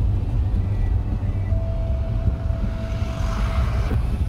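Car driving, heard from inside the cabin: a steady low rumble of engine and road noise. A thin steady tone sounds through the middle, and a hiss swells briefly near the end.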